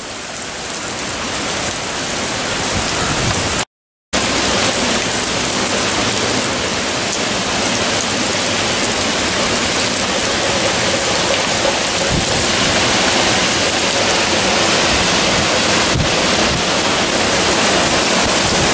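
Heavy wind-driven rain of a tropical storm, a steady rushing noise, broken by a moment of dead silence about four seconds in.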